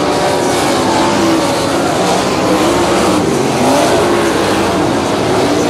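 Several non-winged 360 sprint car V8 engines racing on a dirt oval, their pitches rising and falling over one another as the cars lift and get back on the throttle through the turns.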